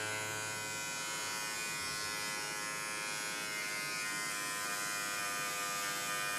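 Battery-operated beard trimmer running with a steady electric buzz.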